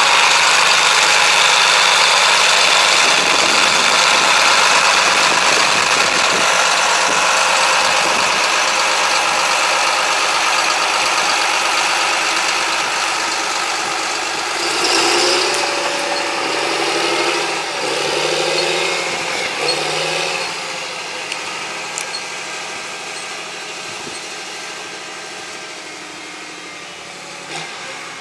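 2005 John Deere 8320 tractor's six-cylinder diesel engine running as the tractor drives off, the engine note rising and falling a few times about halfway through. The sound fades steadily as the tractor moves away.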